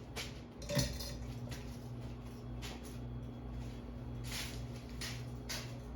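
Harbor Breeze Builder's Best ceiling fan motor running on medium speed with a faint steady electrical hum, on a fan with a failing speed capacitor. A few short soft swishes sound over the hum.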